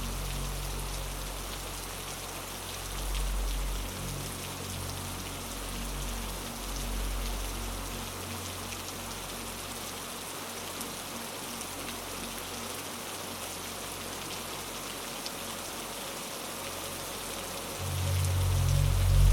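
Steady rain with scattered drop ticks. A low ambient drone fades away partway through and swells back in loudly near the end.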